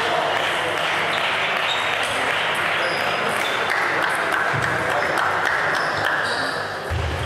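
Sports hall ambience during a table tennis match: the hollow clicks of celluloid balls off bats and tables, scattered through a steady hubbub of voices.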